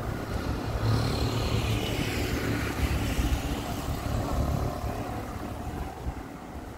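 A motor vehicle passing by. Its sound swells about a second in and fades away toward the end.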